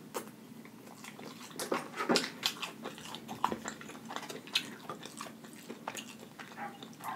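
A neighbour's dog barking several times in short bursts, heard over close-up chewing and biting of fried chicken wings.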